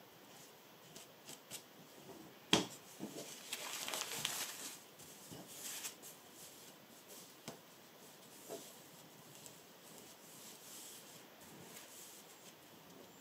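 Small scissors snipping thread loops, a few faint snips with a sharper one about two and a half seconds in, then a soft rustle as fingers move the loose thread scraps on the fabric.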